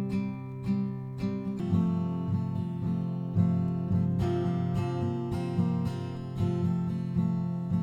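Acoustic guitar strummed in a steady rhythm, with the chord changing a few times.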